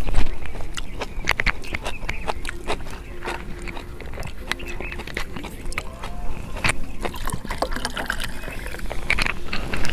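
Eating sounds up close: chewing and mouth smacks with small clicks of utensils, and a soft drink poured from a plastic bottle into a glass near the end.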